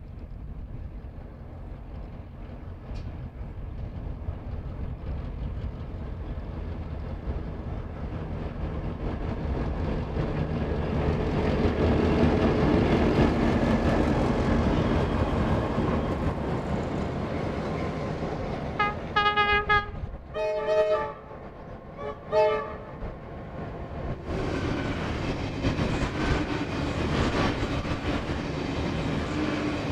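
Heritage diesel locomotives, among them Victorian Railways Y-class Y133, running past at close range, their engine sound growing to a peak about halfway and then easing. A locomotive horn gives several short toots a little past halfway, and the engine sound picks up again near the end.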